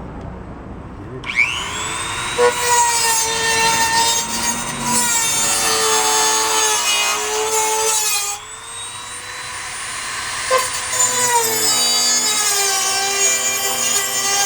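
A high-speed power tool whining as it spins up and cuts into the car's fender, its pitch wavering under load. The noise drops away briefly about eight seconds in, then builds up again.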